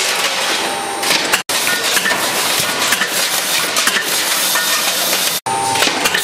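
Automatic can-making press running: a loud, dense mechanical noise full of sharp clicks. The sound drops out for an instant twice, about a second and a half in and again near the end.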